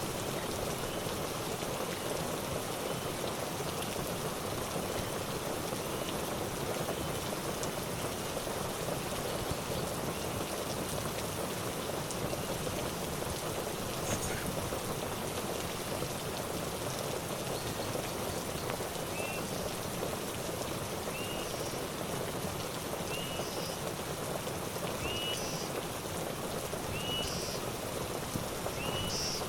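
Steady rain falling, an even hiss throughout. A faint short chirp, from an animal, repeats about every two seconds in the second half.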